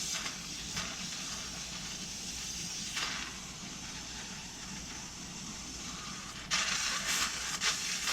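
Soldering torch flame hissing steadily against the water heater tank, turning louder and crackly about six and a half seconds in as the heated metal and flux sizzle.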